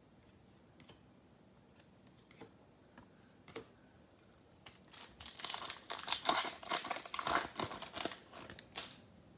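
Foil wrapper of a 2021 Bowman baseball card pack crinkling and tearing as it is opened, a dense crackle that starts about halfway through and lasts about four seconds. Before it, a few faint clicks from the cards being handled.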